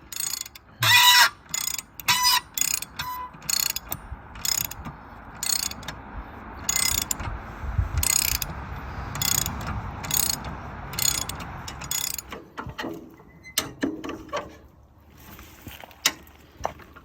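A ratchet clicking in repeated short strokes, about one stroke a second, with a low rumble under it in the middle.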